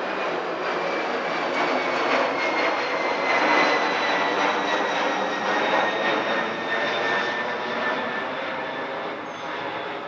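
A loud passing engine rush with a thin whine that slowly falls in pitch, swelling to its loudest about three and a half seconds in and then fading.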